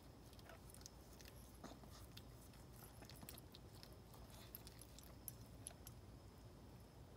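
Faint, irregular small wet clicks and smacks of a Maltese mother dog licking her newborn puppy clean.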